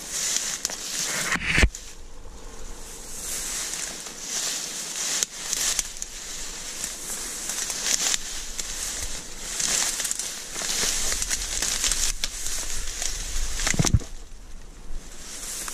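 Dry reeds and tall grass rustling and crackling as someone pushes through them on foot, swelling with each stride. Two sharp thumps, one about a second and a half in and one near the end.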